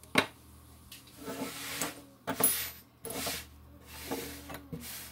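Bench handling of a small-engine aluminium cylinder head: a sharp knock just after the start, then several short rubbing and rustling sounds as it is turned over and wiped.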